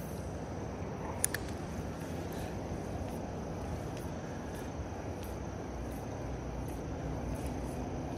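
Steady low rushing outdoor noise, with a single faint click about a second in.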